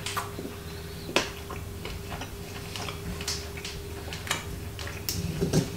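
Metal knife and fork clicking and scraping against a plate while cutting meat: a handful of sharp, irregular ticks spread across the few seconds.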